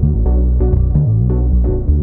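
Background music: an electronic track with a steady beat and a deep synth bass line.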